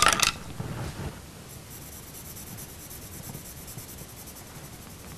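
Coloured pencil scratching on drawing paper in faint, steady shading strokes, after a brief loud knock right at the start.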